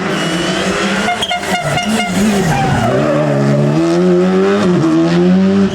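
Rally car engine at high revs. About a second in comes a quick string of sharp pops, then the engine note drops and climbs steadily again as the car pulls away.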